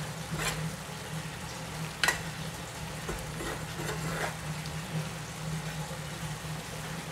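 A metal spoon stirring and scraping ground beef and diced vegetables around a frying pan, with a few sharper scrapes against the pan, the sharpest about two seconds in, over a steady sizzle as the last of the sauce cooks off. A low steady hum runs underneath.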